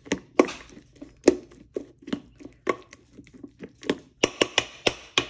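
Metal spoon stirring wet kibble in a metal dog bowl, clinking and scraping against the bowl in a series of sharp knocks that come quicker about four seconds in.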